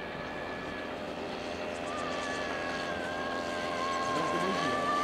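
Small 49cc two-stroke engine of a motorized snowboard running at high revs, a steady buzzing whine whose pitch wavers slightly and which grows louder over the last couple of seconds.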